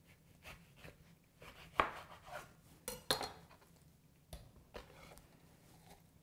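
A knife cutting through an orange on a plastic cutting board: faint, scattered knocks and clicks as the blade meets the board and the knife is set down, the loudest about two seconds in. Near the end an orange half is pressed onto a plastic hand juicer.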